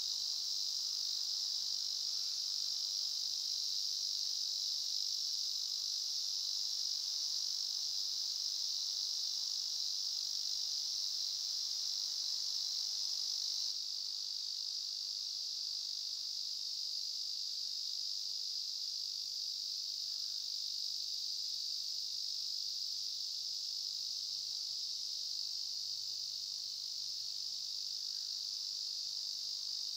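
Steady, unbroken high-pitched chorus of insects in a summer forest, a little quieter from about 14 seconds in.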